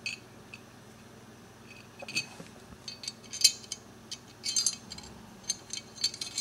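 Light metal clicks and clinks, irregular and scattered, as a Norinco 1911A1's trigger is fitted into the steel frame.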